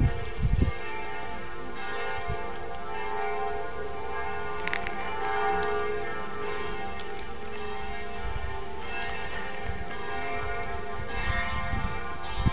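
Large outdoor bells ringing out in a series of strikes. The long tones overlap and hang on, with fresh strikes about two, five, nine and eleven seconds in. A brief low rumble sits under the very start.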